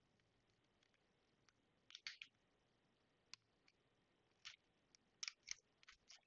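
Faint small plastic clicks from a MacBook Pro butterfly-keyboard keycap being worked with tweezers and a fingertip and unclipped from its mechanism: a quick cluster about two seconds in, then single clicks and a group of three near the end.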